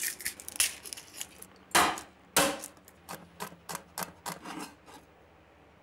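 Chef's knife mincing a garlic clove on a wooden cutting board: irregular knocks of the blade on the board, two louder strikes near two seconds in, then quicker, lighter chopping taps that stop about a second before the end.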